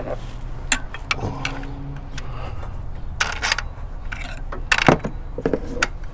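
Scattered metallic clicks and clinks of bolts and tools as the alternator's mounting bolts are set in place and started by hand, over a steady low hum.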